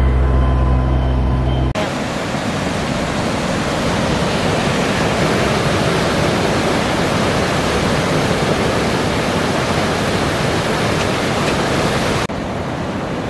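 A steady low mechanical hum, then, about two seconds in, it cuts abruptly to the loud, even rushing of river water over rocky rapids. Near the end the rushing turns suddenly quieter and duller.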